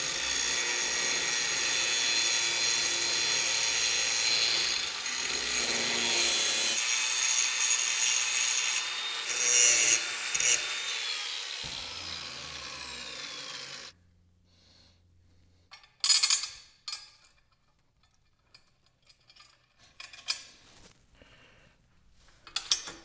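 Makita angle grinder with a cutoff wheel cutting through a steel cap screw to shorten it: a steady high whine with a grinding rasp. About 12 seconds in it is let go and winds down with a falling whine, stopping about 14 seconds in, followed by a few scattered clicks and a sharp clank of metal parts being handled.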